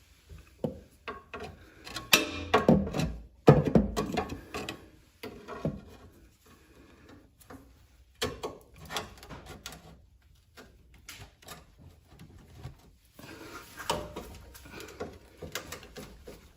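Irregular knocks, clanks and rubbing as the rubber exhaust hanger and pipe are levered and pushed back onto their mount under the truck, the loudest knocks about two to four seconds in.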